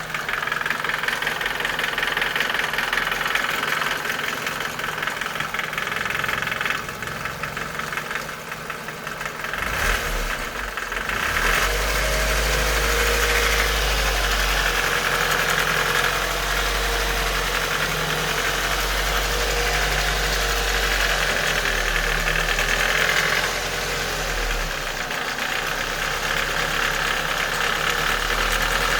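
Nissan Micra K11's 1.3-litre CG13DE engine idling warm with a steady ticking, a tick that comes only at idle at operating temperature and goes away with a few revs. About eleven seconds in, a low rumble becomes louder.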